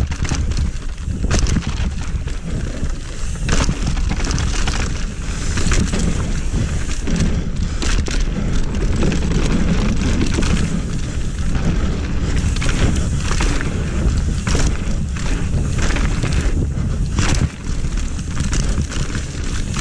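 Mountain bike riding fast down a dirt forest trail: steady wind rumble on the camera's microphone with tyre noise on dirt, and frequent sharp knocks and rattles as the bike hits roots, bumps and boardwalk planks.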